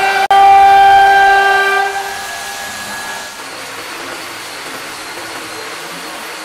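CNC router spindle running at high speed while cutting into a wood panel: a loud, steady, high-pitched whine with several overtones over the cutting noise, broken by a short dropout just under half a second in. After about two seconds the whine fades away, leaving a quieter steady noise.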